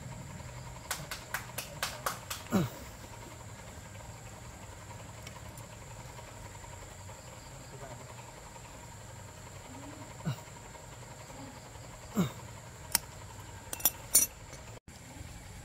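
A quick run of sharp clicks about a second in, then a few louder knocks scattered through the rest, from hand work on a machine being repaired, over a steady high insect drone.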